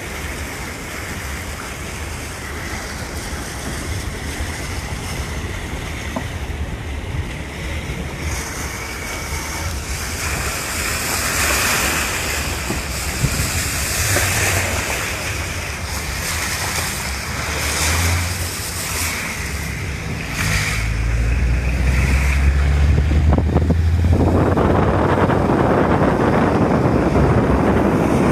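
Rushing wind and wet-road noise heard from a moving vehicle in the rain, over a low rumble, growing louder and fuller in the last few seconds.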